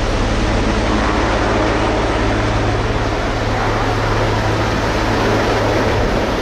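Sikorsky VH-3D Sea King helicopter (Marine One) flying low past: steady, loud rotor chop over a constant turbine and rotor drone.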